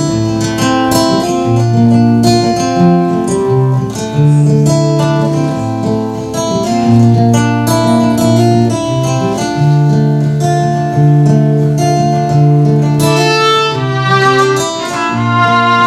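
Acoustic guitar playing the instrumental introduction of a slow folk song, picked notes over steady bass notes. A fiddle comes in with long held notes near the end.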